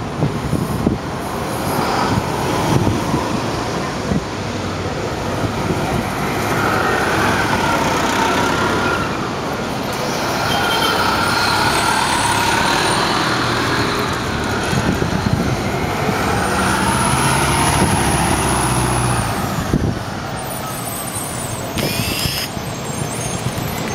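MTA city transit buses driving past, their engines running with a whine that rises and falls, amid street traffic.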